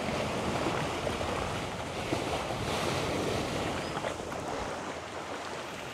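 Steady rushing of sea waves and wind, easing slightly after about four seconds.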